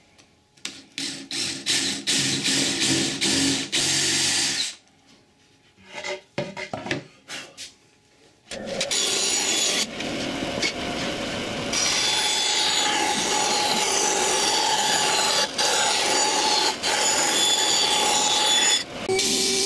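Cordless drill boring through a wooden board with a 17 mm bit, in several bursts over the first eight seconds. Then a bandsaw starts and runs steadily, cutting a round disc out of the board.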